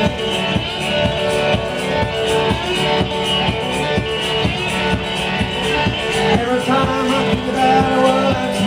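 Live music from a one-man act: strummed guitar over a steady kick-drum beat played on a foot-operated stomp box.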